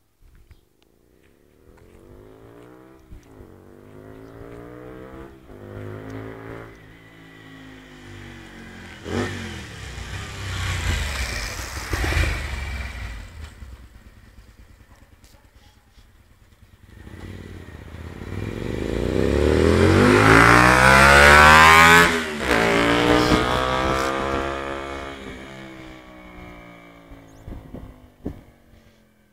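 Honda Varadero 125's V-twin engine through an aftermarket Viper exhaust, riding by and accelerating through the gears, its pitch climbing and dropping back at each shift. It swells twice, loudest about two-thirds of the way through, where the pitch falls as it passes, then fades into the distance.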